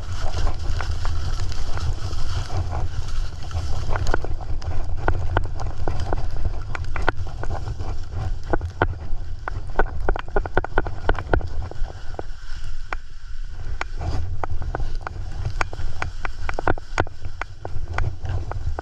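Skis running down a steep snow slope: a constant rumble of wind on the action camera's microphone, with frequent sharp scrapes and clicks of the ski edges on hard snow.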